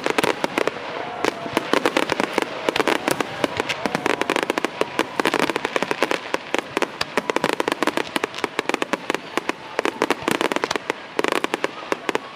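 Fireworks display going off in a dense barrage of sharp crackling pops, many per second, without letup.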